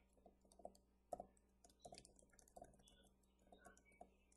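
Faint typing on a computer keyboard: quick, irregular runs of key clicks as a username and password are keyed in.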